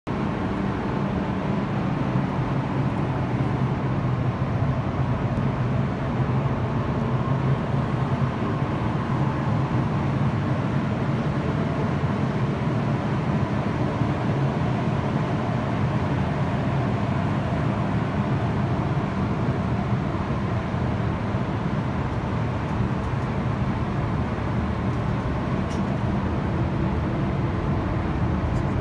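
Spray booth ventilation fans running: a steady rush of air with a low hum.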